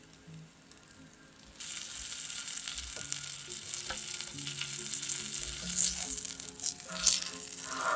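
Tortilla wrap sizzling as it browns on a hot griddle pan; the sizzle starts suddenly about one and a half seconds in. A couple of louder handling noises near the end as tongs turn it, over soft background music.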